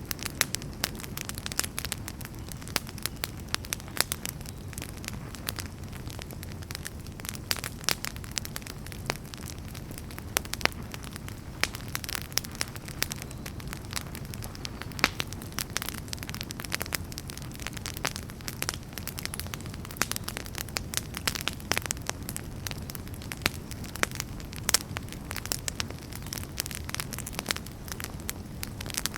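Campfire crackling: irregular sharp pops and snaps of burning wood over a steady low rumble of the flames.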